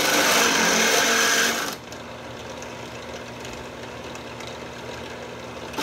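Benchtop drill press cutting through a clamped metal bar: a loud, steady grinding sound for the first couple of seconds, then the bit is lifted clear and the press runs on freely with a lower, steady hum.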